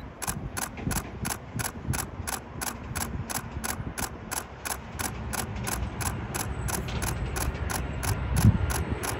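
Steady mechanical ticking, about three clicks a second, over a low jet rumble that grows as a Boeing 737-8 airliner on approach draws nearer; a low thump near the end.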